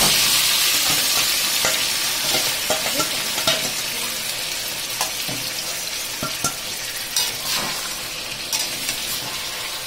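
Yogurt-marinated chicken hitting hot oil and fried onions in a kadai, sizzling loudly at first and gradually dying down. A spoon scraping the last of the marinade from the bowl adds small clicks and scrapes.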